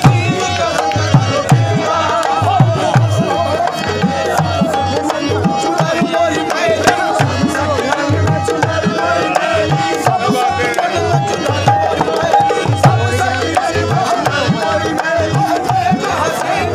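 Live qawwali music: a dholak drum beating a steady rhythm under a harmonium melody.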